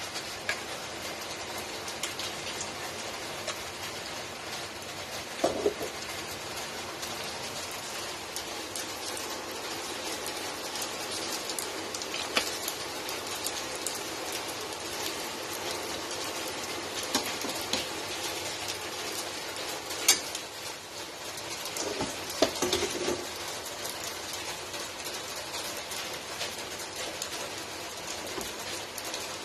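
Water bubbling steadily in a steel stock pot with chicken pieces in it, a continuous hiss, with a few sharp clinks of metal tongs against the pot, the loudest about 20 seconds in.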